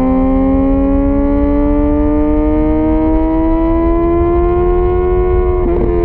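2004 Kawasaki ZX-10R inline-four with a full Sato titanium exhaust running at high revs under steady throttle, its pitch climbing slowly for about five seconds, then wavering briefly and easing down a little, over a low rumble.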